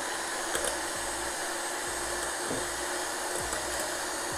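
Electric mixer running steadily as it beats egg whites, which are just turning foamy on the way to being whipped stiff.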